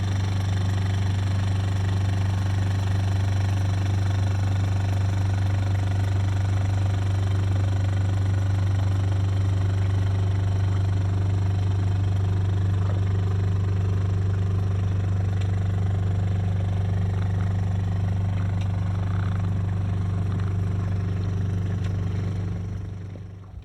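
Small outboard motor pushing a sailboat, running at a steady speed with an even low drone, fading away right at the end.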